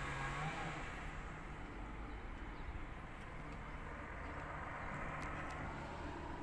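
A vehicle engine idling: a steady low hum with no speech over it.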